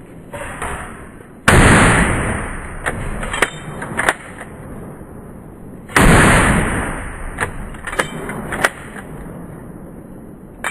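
Two rifle shots about four and a half seconds apart, each with a long echoing tail. Each shot is followed by about three sharp metallic clicks, typical of a bolt being worked to chamber the next round.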